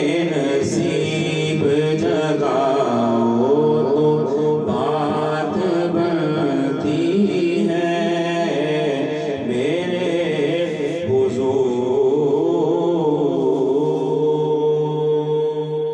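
A man singing a naat, an Urdu devotional poem, into a microphone. He draws the words out in long, ornamented, gliding melodic lines and ends on a long held note.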